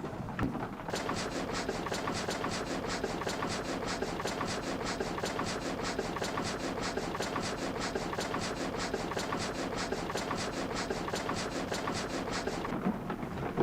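Water-powered vertical frame saw running, its saw frame and connecting rods going up and down in an even, rapid clatter of about four to five knocks a second. It starts about a second in and stops shortly before the end.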